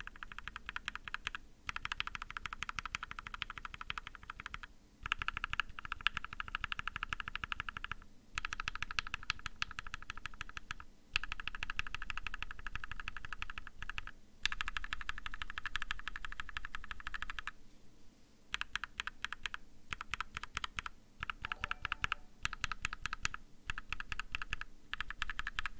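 Custom mechanical keyboard with a brass plate and GMK keycaps being typed on fast, its linear switches (H1, Cherry-top H1, Gateron Ink, Tangerine, Mauve and Cream) pressed and released to compare their clack and bottom-out sound. The key presses come in quick runs of about two to three seconds, each followed by a brief pause.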